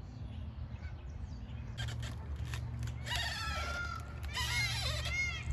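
A low steady rumble, with a series of short high animal calls that rise and fall starting about three seconds in, coming quickly one after another near the end.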